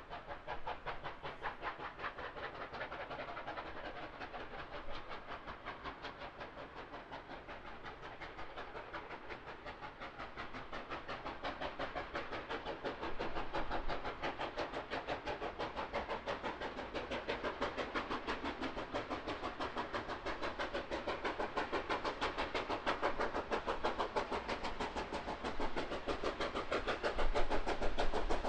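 Steam locomotive working hard, its exhaust beating in a rapid, even rhythm and growing gradually louder.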